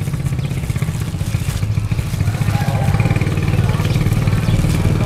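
A motorcycle engine running steadily close by, with a fast, even low pulse, a little louder from about halfway.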